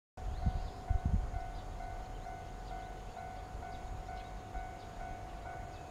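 Japanese railway level-crossing warning bell ringing its repeated 'kan-kan' tone, about two strokes a second, the sign that the crossing is active for an approaching train. Wind buffets the microphone with a few low thumps about a second in.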